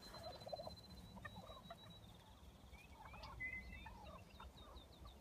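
Wild turkeys calling faintly, with a high thin trill and short chirps from a small bird over them.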